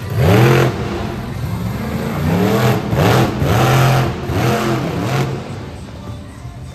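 Monster truck engine revving hard in a series of short bursts, its pitch climbing and dropping with each blip of the throttle as the truck drives and turns on the arena dirt, then easing off near the end.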